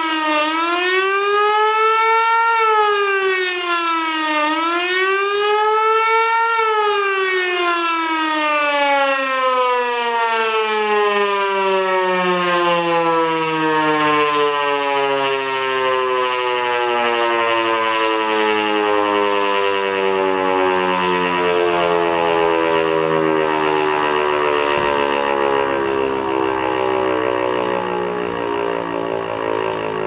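Swiss MSL-6 civil defence siren, driven by an 11 kW electric motor, sounding the general-alarm wail, its tone rising and falling about every four seconds. About six seconds in, the wail stops rising and the rotor coasts down, the pitch falling slowly and steadily: the siren has been switched off at the end of the alarm.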